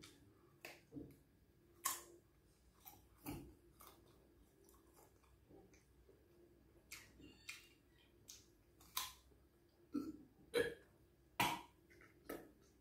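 Mouth sounds of chewing unripe sapodilla: short wet smacks and clicks at irregular intervals, the loudest near the end.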